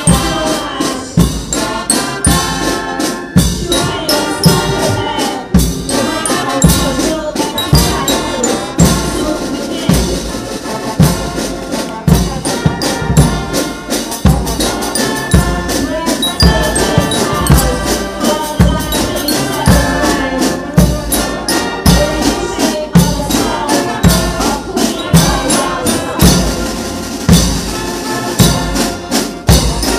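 Police marching band playing a march: brass over a steady bass drum beat.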